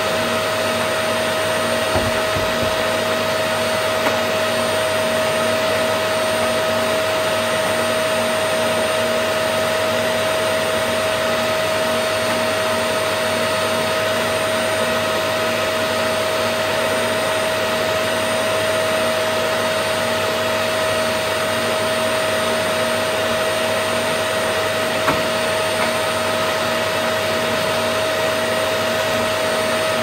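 Canister vacuum cleaner running steadily, its motor giving a constant whine over the rush of suction, with a few light knocks.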